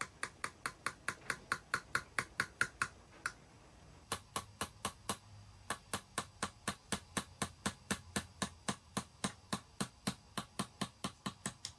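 Small engraver's hammer tapping a steel chisel (tagane) to cut a pine-needle pattern into a silver sake cup. The taps are quick, light and even, about four a second, with a short break about three seconds in before they start again.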